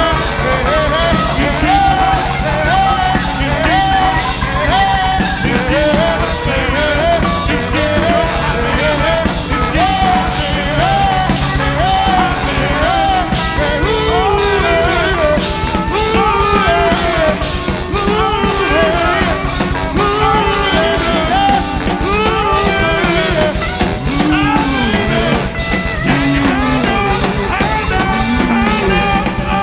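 A live band playing an upbeat rock-and-roll number. A lead line of bending, repeated phrases runs over a steady bass and drum beat.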